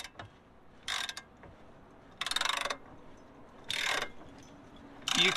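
Titan hand ratchet clicking as it is swung back between pulls on a bolt. Four short runs of rapid clicks come about one every one and a half seconds.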